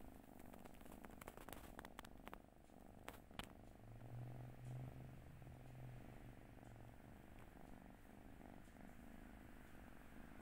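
Turkish Angora kitten purring softly, a faint steady low rumble that swells for a few seconds in the middle. A few faint clicks in the first few seconds.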